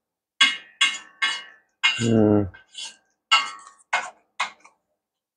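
Spoon and chopsticks scraping and clinking against a stainless steel wok-style bowl, gathering up leftover noodles, in about eight sharp strokes. A short low vocal hum about two seconds in.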